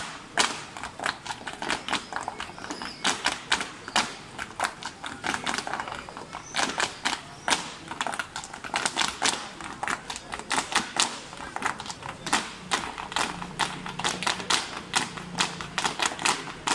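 Flamenco footwork by a group of dancers in heeled shoes: rapid heel and toe stamps on the street pavement, a fast run of sharp taps, several a second, in uneven clusters.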